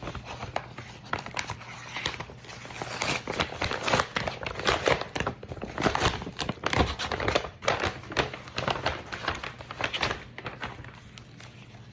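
Packaging crinkling and rustling as a parcel is opened by hand, a dense, irregular run of crackles and rustles.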